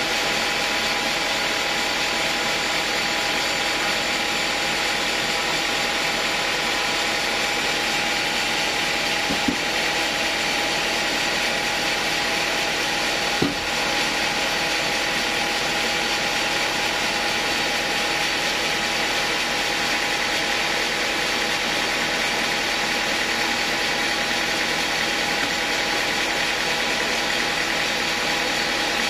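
Homemade sawmill running steadily while sawing a log of acacia hardwood fed through on its carriage, a constant mechanical drone with a few steady tones. Two brief knocks about ten and fourteen seconds in.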